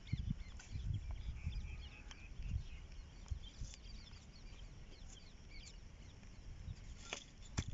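Birds chirping in short, rapid calls, over irregular low thumps and rumbles, with a couple of sharp clicks near the end.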